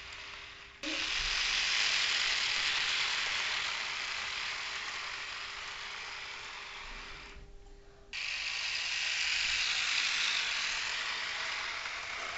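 H0-scale model train with a V100 diesel locomotive running on sectional track: a steady whirring, rattling rush of motor and wheels. It stops abruptly about seven seconds in and comes back about a second later, swelling and then fading as the train passes.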